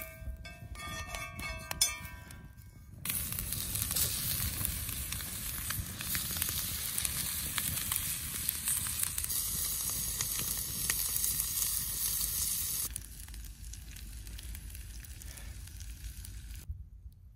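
Food frying in a cast iron skillet over a campfire: a loud, even sizzle that starts suddenly about three seconds in and turns quieter after about ten seconds. A few steady high tones sound briefly before the sizzle begins.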